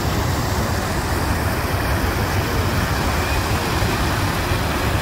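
Steady low rumble with a hiss over it: road noise of a moving vehicle.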